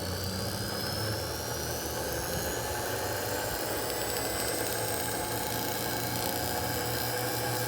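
Brushed electric motor of a 1943 gun director, fed from a variac, running up to speed on freshly fitted carbon brushes: a steady hum under a thin whine that rises in pitch for about five seconds, then holds steady.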